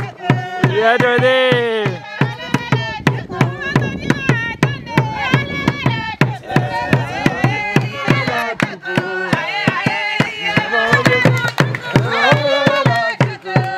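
A hand drum beaten in a steady, quick beat, with voices singing over it.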